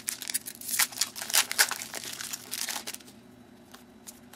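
Foil wrapper of a 2009 Topps UFC Main Event trading card pack crinkling as the hands open and handle it, in dense bursts for about three seconds, then going much quieter.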